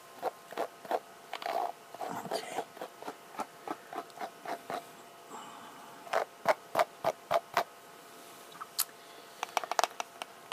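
Hands handling hair close to the microphone: a run of soft, irregular rustles and taps, with a louder cluster of taps about six seconds in and more quick clicks near the end.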